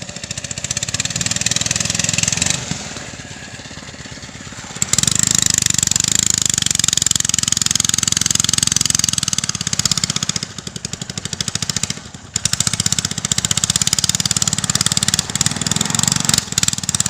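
Single small boat engine running fast and steadily, pushing a heavily loaded river crossing boat that struggles with only one engine. It drops off for about two seconds, a few seconds in, then comes back up louder.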